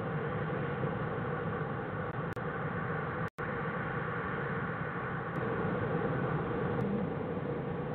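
Steady electronic hiss and hum from a den camera's microphone, with the sound cutting out for a split second about a third of the way in.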